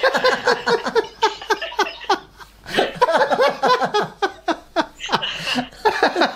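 Two men laughing heartily together in quick, rhythmic ha-ha pulses, with a brief lull about two seconds in before the laughter picks up again.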